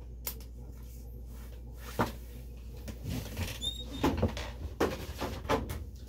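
Scattered clicks and rustling from a ratchet belt and its metal buckle being handled and unfastened at the waist. There is one sharp click about two seconds in and a flurry of small clicks later, with a brief high squeak in the middle.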